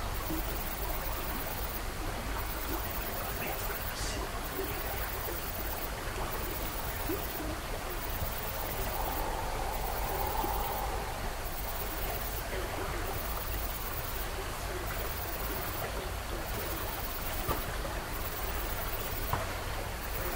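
Steady rushing hiss of background noise with a low rumble under it. A high-pitched hiss cuts in and out about every second and a half, and two faint ticks come near the end.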